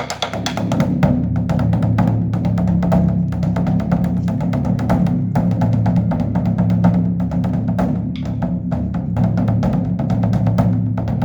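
Large Korean Buddhist temple drum (beopgo) beaten in a fast, unbroken stream of strokes, its deep body ringing on steadily underneath, sounded for the evening service.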